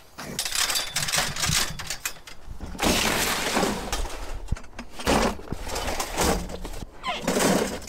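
Scrap copper tubing clattering and clinking as it is handled and dropped into plastic buckets, with a burst of clatter about three seconds in and the thud of a loaded bucket being set down in a snowy pickup bed.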